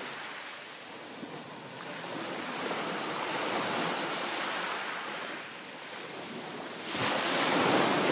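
Sea waves surging onto a pebble beach, swelling and easing, with the loudest wave breaking about seven seconds in.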